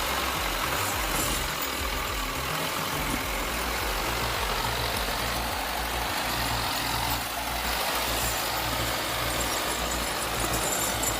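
Heavy machine's engine running steadily with a low, even drone.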